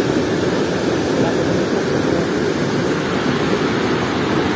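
Steady rushing of water pouring through a weir's sluice gate, a loud, even roar.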